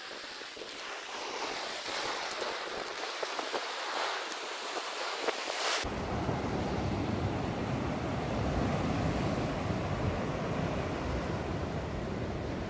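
Sea surf washing over a rocky, boulder-strewn shore, with wind on the microphone. About six seconds in, the sound turns suddenly fuller as a low wind rumble on the microphone comes in and stays.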